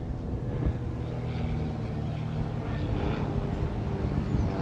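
Small propeller plane's piston engine droning steadily as it passes overhead in a low flyover.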